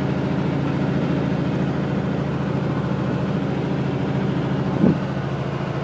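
Semi truck's diesel engine running steadily while under way, heard from inside the cab with road noise. A brief louder thump comes about five seconds in.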